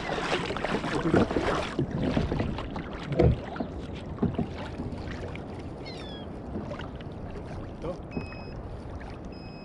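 Kayak paddle strokes splashing in the sea for the first two seconds, then a single knock about three seconds in and quieter lapping water against the hull. A short falling high chirp comes near the middle and a brief high beep near the end.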